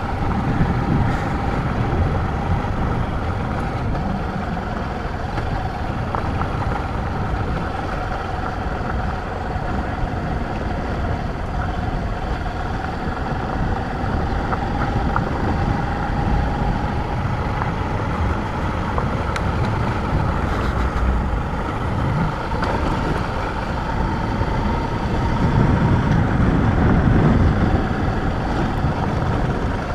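Motorcycle riding at a steady cruise: the engine note holds with a slow, slight rise and fall in pitch over a constant rumble of wind on the microphone, growing a little louder near the end.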